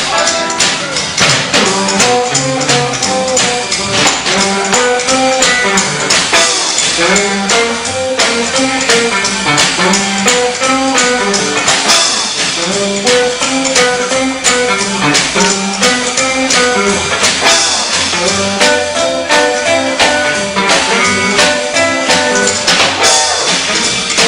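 A country boogie band playing an instrumental break: electric guitar, steel guitar, rhythm guitar, upright bass and drums, with a steady driving beat.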